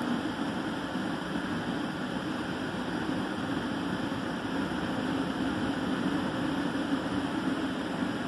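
Christ Genius rollover car wash running over a car: a steady noise of its spinning brushes and water, with a low, even motor hum under it.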